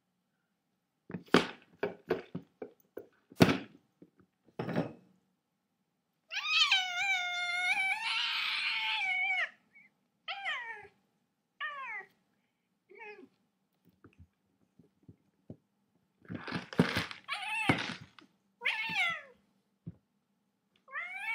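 Domestic cat meowing insistently, demanding to get into a closed plastic container: one long drawn-out meow about six seconds in, then a string of shorter meows. A few sharp knocks come in the first five seconds.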